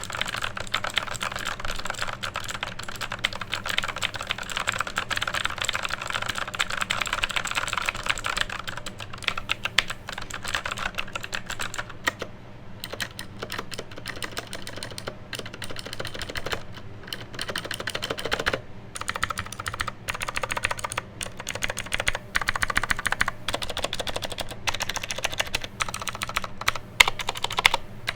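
Mechanical keyboard with clicky MX Blue switches being typed on. The keys go in a fast, dense run for about the first eight seconds, then in shorter bursts with brief pauses. An electric fan hums steadily underneath.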